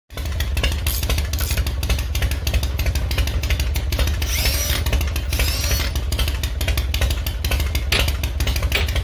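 Motorcycle engine running with a deep, steady, rapidly pulsing exhaust note.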